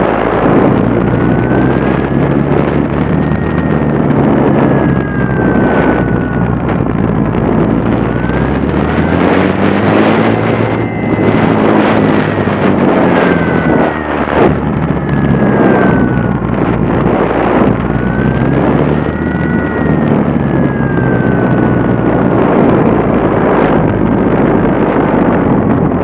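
Radio-controlled model plane's motor and propeller heard from the onboard camera, with heavy wind rushing and crackling over the microphone. The motor's pitch rises and falls in slow swells a few times.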